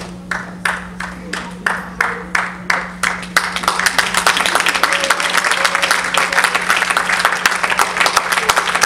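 Congregation clapping in time, about three claps a second, turning into general applause after about three and a half seconds, over a steady low hum.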